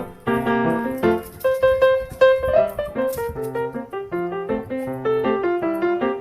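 Background piano music, a light melody of short notes.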